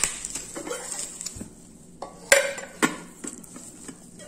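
Nonstick pots and glass lids being handled and lifted out of their packing, with several sharp clinks and knocks, the loudest about two seconds in, over the rustle of plastic wrap and bubble wrap.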